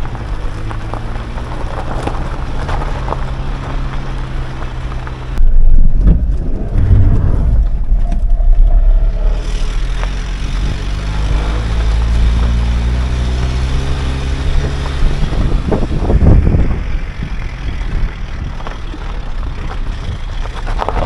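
Van engine running as it drives, its note climbing twice as it picks up speed. About five seconds in, a loud low rumble takes over for several seconds.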